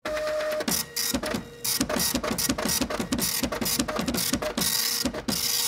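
Intro sound effect of rapid mechanical clattering and whirring, like a printer at work, in quick repeated strokes over a steady thin hum.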